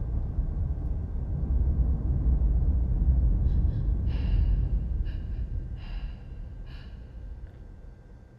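A deep low rumble that slowly fades, with a run of short gasping breaths in the second half.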